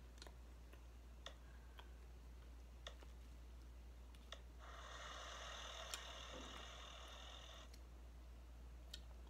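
Near silence broken by a few faint, sharp clicks spread out over several seconds, with a soft hiss lasting about three seconds in the middle.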